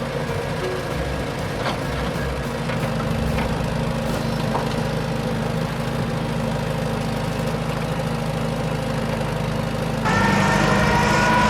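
Motor of a radio-controlled construction vehicle running with a steady engine-like hum and scattered light clicks. Near the end a louder, higher whine starts and holds.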